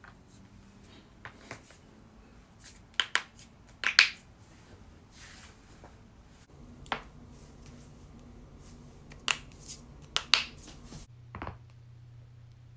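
Neck joints cracking as the head is twisted by hand against the chin: a series of sharp pops, some in quick pairs, the loudest about four seconds in.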